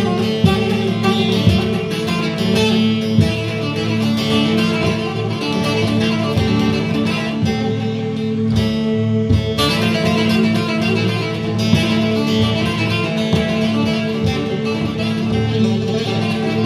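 Music played on plucked string instruments, dense picked notes over a steady low drone. The upper notes drop out briefly about halfway through.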